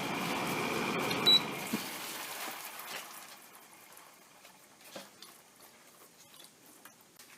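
Haier window air conditioner's fan running, then dying away over about three seconds as the unit winds down, followed by a few light knocks.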